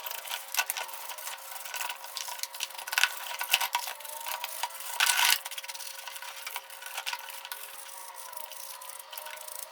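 A hand tool scraping and rubbing on a small workpiece in irregular strokes with scattered clicks, and one louder scrape about five seconds in, over a faint steady hum.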